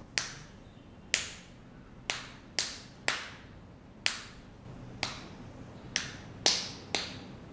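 Four-finger clapping: the four fingers of one hand struck against the palm of the other. Ten sharp claps come in two rounds, each round three evenly spaced claps followed by two quicker ones.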